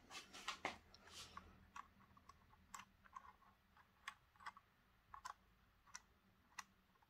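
Faint handling noise from a plastic model railway coach held in the hands: a quick cluster of light clicks and taps in the first second or so, then scattered single clicks.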